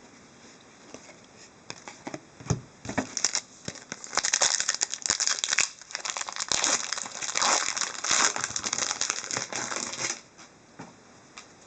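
Wrapper of a hockey card pack crinkling and tearing as the pack is opened. A few light crackles come first, then about six seconds of dense crinkling that stops near the end.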